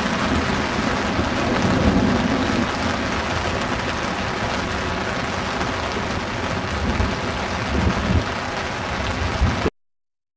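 Thunderstorm: heavy rain falling steadily, with low rumbles of thunder. It cuts off suddenly near the end.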